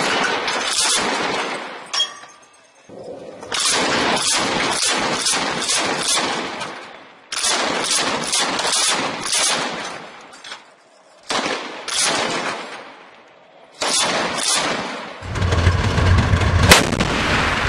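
Truck-mounted heavy machine gun firing in repeated bursts of several shots, about five bursts with short pauses between them. Near the end the firing gives way to a steady low engine rumble and a single sharp bang.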